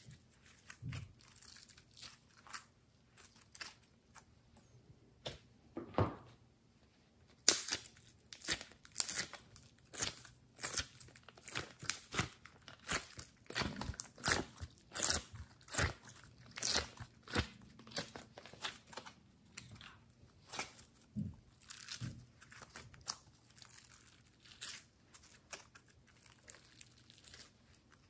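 Slime being squeezed and kneaded by hand: irregular sticky crackles and pops as trapped air bursts and the slime tears apart, busiest in the middle stretch.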